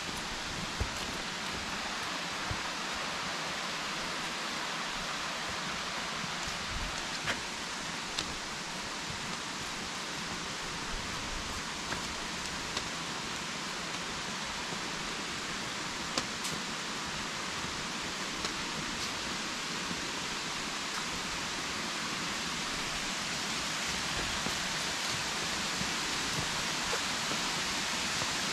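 Enfield Creek rushing over its rock bed and small cascades, a steady rush that grows a little louder near the end, with a few faint clicks.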